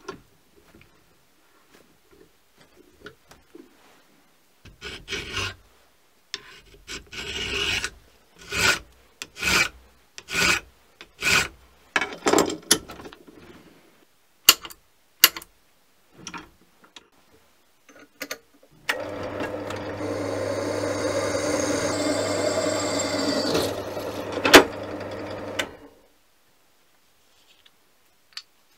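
Hand file strokes across the edge of a small steel plate clamped in a vise, roughly one stroke a second, then two sharp taps of a centre punch. About four seconds later a drill runs steadily for about seven seconds as a small hole is drilled through the plate, with a sharp click near the end.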